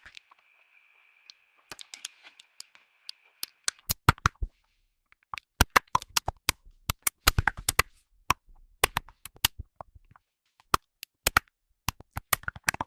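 Typing on a computer keyboard: quick, irregular key clicks, sparse at first and then a steady run from a few seconds in. A faint high whine runs underneath at the start.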